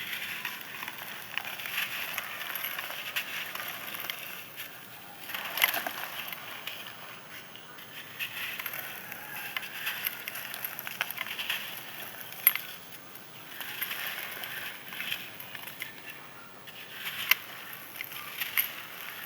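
Crisp, dried sand crust being crushed and crumbled, a dense crackling crunch that keeps going, with a few sharper snaps about six, twelve and seventeen seconds in.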